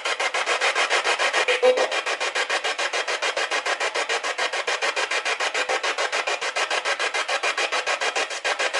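Spirit box sweeping through radio frequencies: choppy radio static in rapid, evenly spaced pulses, several a second, with a brief snatch of tone about two seconds in.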